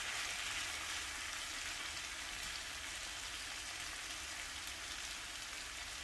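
Sliced potatoes frying in hot oil in a pan, a steady sizzle.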